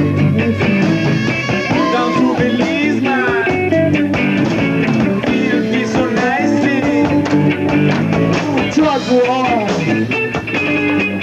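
Live rock band playing an instrumental break: electric guitar, bass and drums, with a saxophone among the lead lines.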